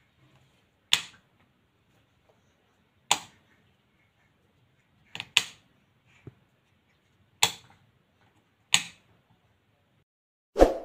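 Plastic wall light switch being clicked on and off several times, sharp single clicks a second or two apart with one quick double click, the loudest near the end: the newly wired switch and lamp being tested.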